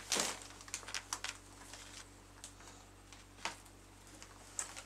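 Faint handling sounds of a doll being tucked into a small wooden toy crib: a brief rustle of cloth right at the start, then scattered light clicks and small knocks, over a faint steady hum.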